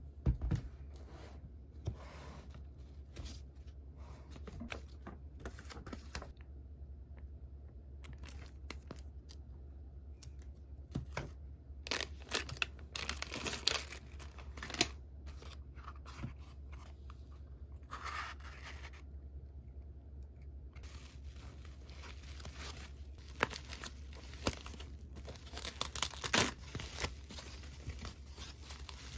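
Plastic snack wrappers and packaging crinkling and rustling as they are handled and set down, in irregular crackles with scattered light taps. Louder clusters of rustling come about halfway through and again near the end.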